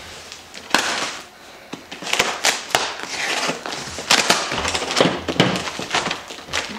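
Packing tape on a cardboard box being slit and torn loose, then the cardboard flaps folded open and the contents shifted: a run of scrapes, crinkles and knocks.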